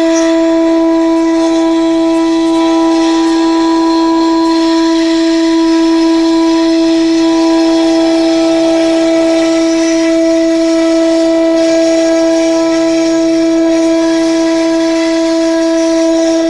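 CNC router spindle running with a steady, unchanging whine as it engraves a door, with a fainter hiss of cutting over it.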